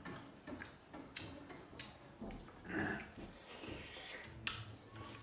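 Eating sounds of rice and dal being eaten by hand from steel plates: fingers mixing food against the metal, with scattered small clicks and mouth sounds. A short vocal sound comes about three seconds in.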